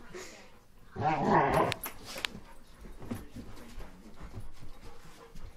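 Dobermans in a room: one gives a short growl about a second in, followed by quieter scattered noises as the dogs move about.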